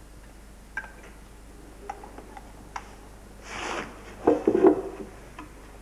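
Light clicks and knocks in a small room, with a brief rustle about three and a half seconds in and a short cluster of louder knocks right after it.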